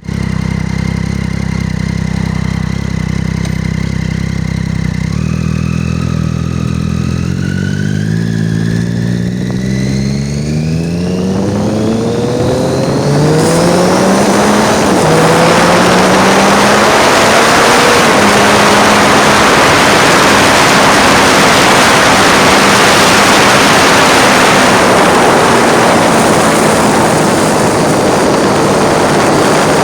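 Triumph Street Triple's 675 cc three-cylinder engine holds a steady note, then its revs climb in several steps as the bike accelerates. From about twelve seconds in, loud wind rushing over the phone microphone swamps the engine.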